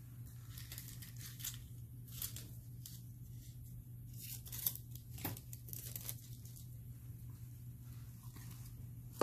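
Thin nail foil sheets crinkling and rustling now and then as they are handled and sorted, over a faint steady low hum.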